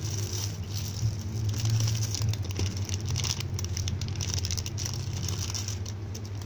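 Clear plastic packaging of squishy toys crinkling and crackling in irregular bursts as the packs are handled, over a steady low hum.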